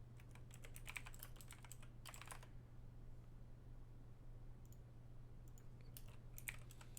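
Faint typing on a computer keyboard: a quick run of keystrokes in the first two and a half seconds, then a few scattered key clicks near the end, over a steady low hum.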